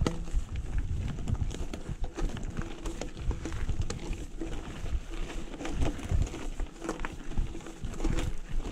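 Mountain bike rolling down a loose gravel track, its tyres crunching over stones and the bike rattling with irregular clicks and knocks at every bump, over a low rumble of wind on the microphone.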